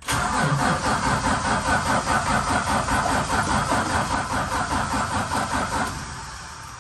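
Valiant Charger's engine turning over with the key, a fast even mechanical rhythm, starting abruptly and dying away about six seconds in.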